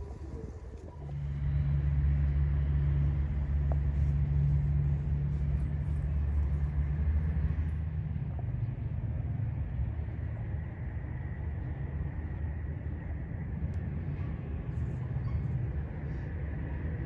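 A steady, low engine-like rumble, easing off a little about halfway through.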